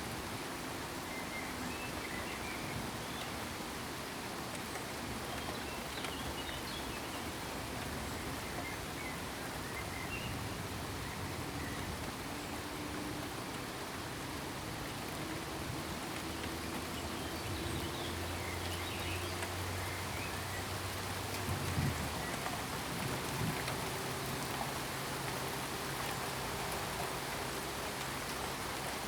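Steady rain falling and pattering on surfaces, an even hiss of many drops.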